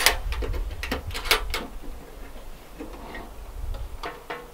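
Metal Craftsman toolbox being opened: sharp clicks and clacks as the latch is undone and the lid lifted, a cluster of them in the first second and a half, then fainter handling clicks near the end.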